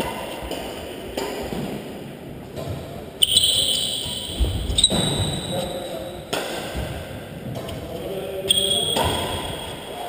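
Badminton rally on a sports-hall court: sharp racket hits on the shuttlecock and players' shoes squeaking on the court floor, with a high squeal about three seconds in and again near the end, and a few brief voices.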